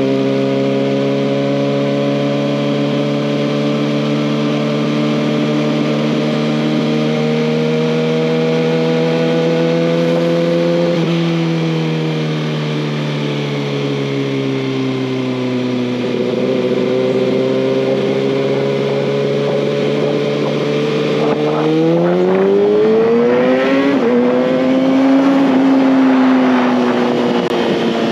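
A 2019 Kawasaki ZX-6R's inline-four engine running under way. Its note rises gently, eases back around the middle, then climbs sharply about three-quarters of the way through, breaks briefly and falls off toward the end, over a steady rushing hiss.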